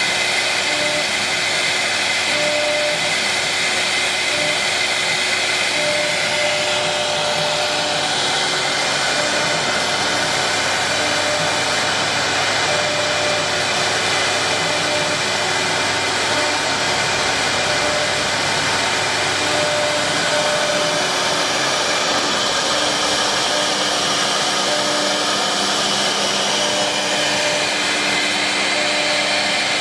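Wood CNC router running steadily while carving a 3D job in wood, a constant loud machine noise with short tones coming and going.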